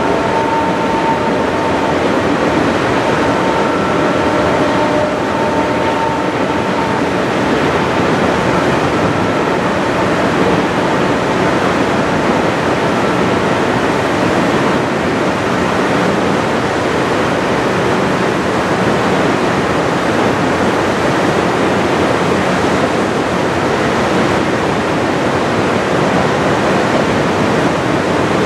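Steady rushing of a fast river blended with the rolling rumble of a long CP coal train's hopper cars passing along the far bank. A faint high squeal sounds during the first several seconds.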